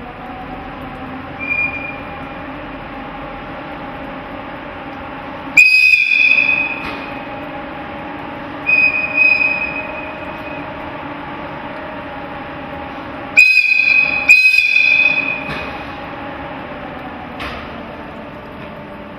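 EF64 electric locomotive's air whistle sounding during its pre-service inspection: a short faint toot, then four loud blasts of one to two seconds each, the last two close together, echoing across the depot. A steady machinery hum runs underneath.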